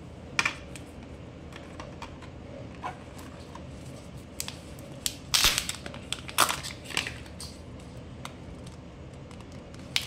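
Kinder Joy egg being opened by hand: its plastic shell and foil seal crackle and crinkle in a few sharp bursts, loudest about five to seven seconds in, with a lone click about half a second in.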